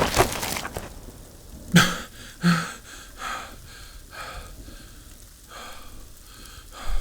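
Rain falling, with heavy breathing and a run of regular steps on wet forest ground, about one every three-quarters of a second.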